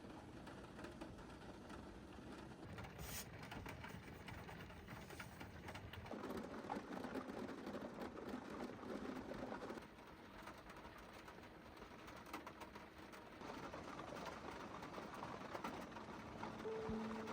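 Faint bird calls over a steady background hiss.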